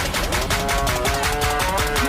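Background electronic music with a fast, busy beat and held synth notes.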